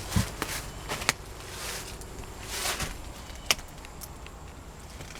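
Old objects being handled and moved about: several sharp knocks and clicks with short rustling swishes in between.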